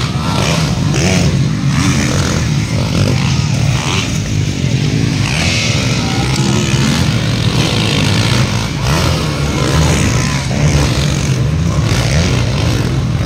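Motocross dirt bike engines revving and running steadily as several bikes race around the track and over jumps, with voices in the background.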